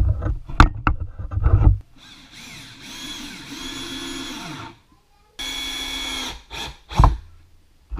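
Timber battens knocking and clattering as they are laid on a plywood board, then an 18-volt cordless drill runs twice, first a whine of about two and a half seconds that spins up and winds down, then a shorter one, countersinking screw holes in a pine batten with a larger bit. A couple of sharp knocks of wood follow near the end.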